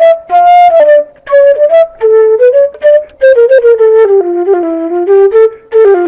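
Metal transverse flute played solo: a melody of quick notes in several short phrases that works its way down in pitch.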